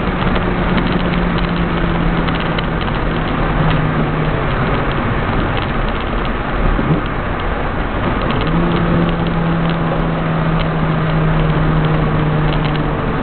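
A 1300 Rallye car's engine running at steady revs, heard from inside the cabin over loud road and wind noise, with frequent clicks and rattles. The engine note drops away for a few seconds in the middle and returns at a steady pitch about eight seconds in.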